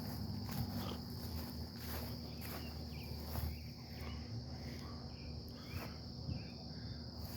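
Outdoor insect chorus, likely crickets: a steady high-pitched trill with a low rumble beneath it and a few faint taps and short chirps.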